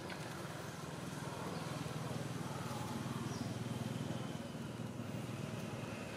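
Low, steady engine drone of a motor vehicle, growing louder through the middle and easing slightly near the end.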